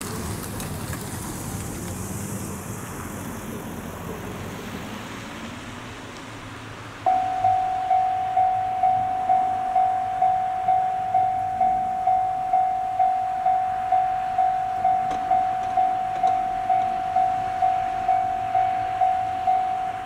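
Japanese level-crossing warning bell: a single electronic tone that starts suddenly about seven seconds in and rings evenly at about two strokes a second, signalling an approaching train. Before it there is only a steady rush of outdoor background noise.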